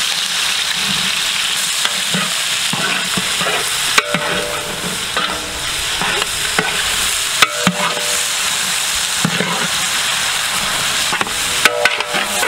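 Chopped onions sizzling as they fry in hot sesame oil in a large metal pot. A ladle stirs them, scraping and knocking against the pot with a few short metallic rings.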